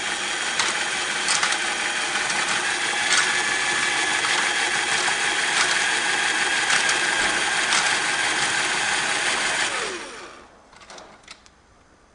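Power drill running steadily for about ten seconds while driving a fastener out during wagon assembly, then winding down and stopping near the end; a few faint clicks follow.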